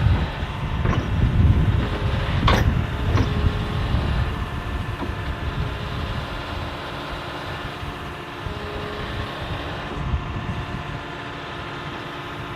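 Excavator engine running under load while the arm and bucket work, with three sharp metal clanks in the first few seconds. It then settles to a steadier, quieter run.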